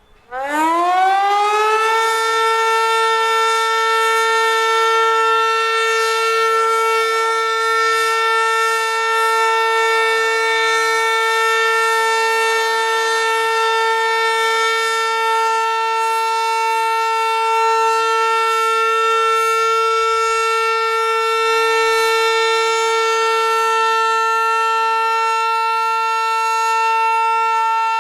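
Hörmann HLS 273 pneumatic high-performance civil defence siren starting up, its pitch climbing over about two seconds, then holding one steady, loud tone. This is the continuous all-clear (Entwarnung) signal.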